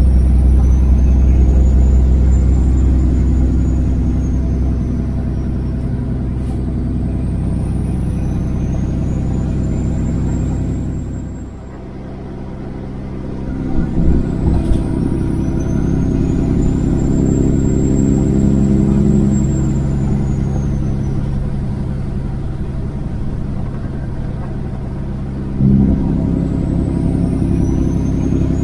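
Kenworth W900 semi truck's diesel engine running steadily under load at highway speed. The drone dips briefly about eleven seconds in, then returns with a changed note, and changes again with a sudden step near the end.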